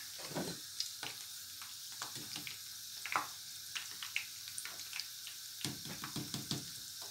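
Chicken spring rolls deep-frying in hot oil: a steady sizzle dotted with frequent short crackles and pops.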